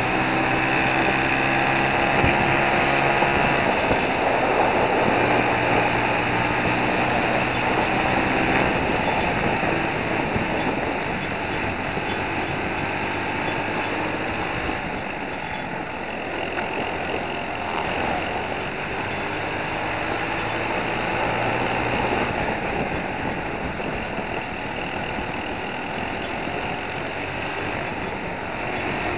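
Kart racing engine heard onboard at race speed. It is a World Formula Briggs & Stratton four-stroke, and its pitch climbs as it accelerates and dips as the driver lifts for the corners. Wind noise on the microphone runs underneath.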